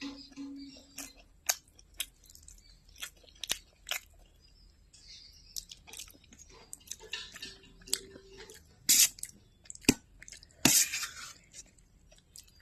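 Chewing and crunching of food in a person's mouth, with irregular crisp crunches and wet mouth clicks; two louder crunches come about nine and eleven seconds in.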